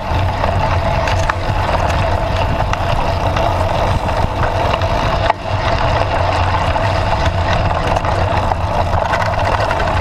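Steady wind and rolling noise from a bicycle riding a dirt path, picked up by a handlebar-mounted action camera: a constant rumble with small knocks from bumps.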